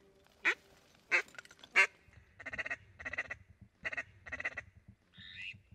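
Duck quacking: three short, sharp quacks in the first two seconds, then four longer, coarser quacks in two pairs, and higher-pitched calls near the end.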